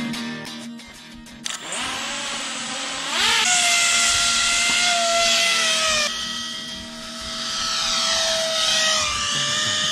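Motor and propeller of a 3D-printed radio-controlled paramotor: a high whine that revs up sharply about three seconds in, then holds steady. Near the end it swells and fades with a sweeping, phasing sound as the model flies past.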